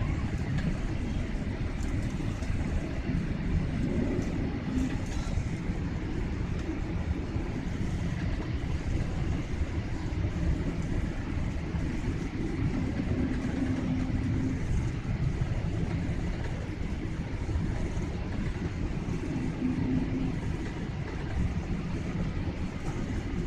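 Steady low rumble of jet engines and rushing air heard inside an airliner's cabin on its descent to land, with a faint hum that comes and goes a few times.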